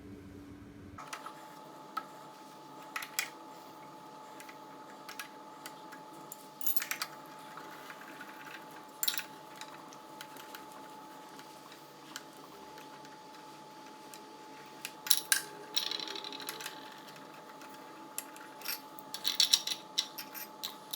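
Motorcycle engine running briefly, cut off about a second in. After that, scattered sharp metallic clicks and clinks, like hand tools and small parts against metal, sound over a steady hum, with a cluster of ringing clinks near the end.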